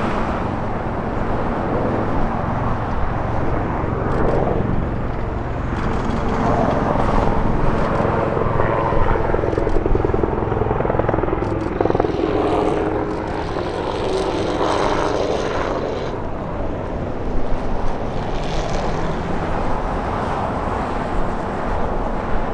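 Bell AH-1Z Viper attack helicopter flying overhead: a steady beat from its four-blade main rotor over the rush of its turbines.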